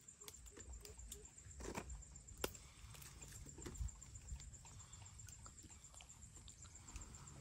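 Quiet outdoor ambience: faint rustling and scattered small clicks of small fruit being stripped by hand from leafy twigs, over a low rumble of wind on the microphone and a faint steady high-pitched tone.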